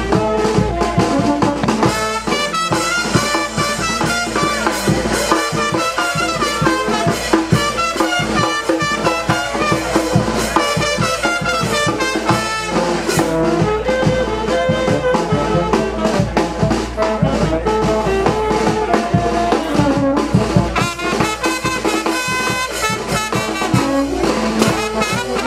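Brass-band dance music with trumpets, trombones and drums playing a lively, steady beat.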